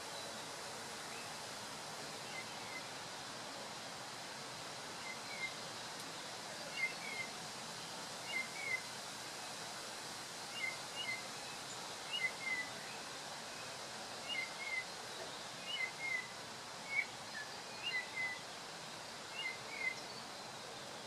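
Chorister Robin-chat parent calling near its nest while carrying food for nestlings: short, high chirps, mostly in pairs, repeated about every second, beginning a few seconds in, over a steady hiss.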